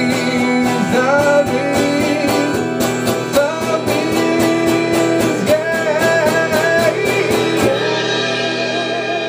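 Live rock band playing the end of a song: electric guitar lines over a steady drum beat. The drums stop near the end and the final chord is left ringing.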